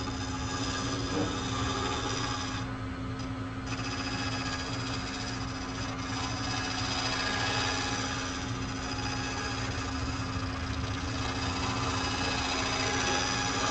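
Wood lathe running with a gouge taking a light shear cut on the outside of a natural-edge bowl: a steady motor hum under the hiss of the cut, with a high-pitched whine, the sign that the cut is leaving little grooves and high points instead of smoothing. The cutting noise drops out briefly about three seconds in.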